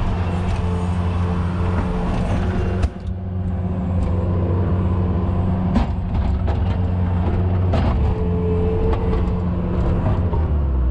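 Skid steer engine running steadily at close range, with a few sharp knocks and clanks of the machine working.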